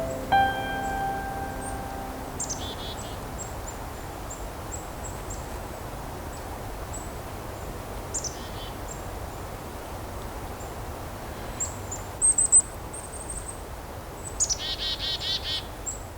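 Small songbirds calling: many short, thin, high notes, broken by a few louder runs of harsh, quickly repeated call notes, the longest run near the end. A piano note from the closing music fades out in the first two seconds.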